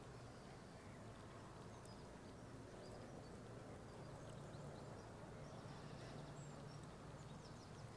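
Near silence: faint outdoor room tone with a low steady hum and a few faint, short, high chirps.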